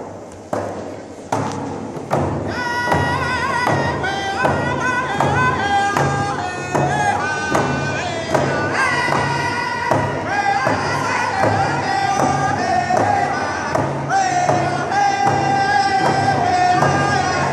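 A group of men singing a round dance song together over a steady beat of hide hand drums struck with beaters. The drums sound alone at first, and the voices come in about two seconds in.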